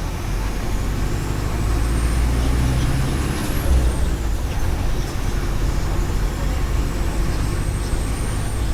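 Mercedes-Benz OF 1418 bus's diesel engine running with a deep steady rumble, over a thin high whine that rises for the first few seconds, falls back around four to five seconds in, then rises again. A brief knock sounds just under four seconds in.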